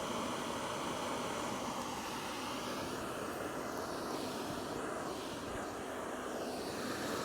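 Portable gas camping stove burner hissing steadily under a kettle that is nearly at the boil.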